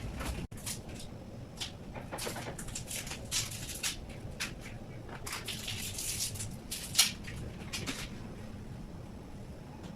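Handling noises: a run of short rustling, crinkling sounds with one sharp click about seven seconds in, dying away about eight seconds in.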